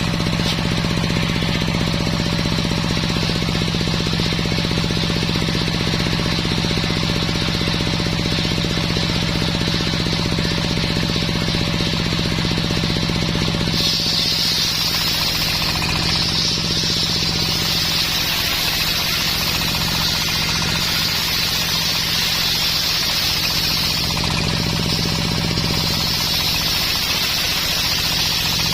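Homemade circular sawmill running steadily: the engine drives it with a rapid, even pulsing underneath. The blade hisses as it saws through dense coconut wood, rising in pitch and strength about halfway through.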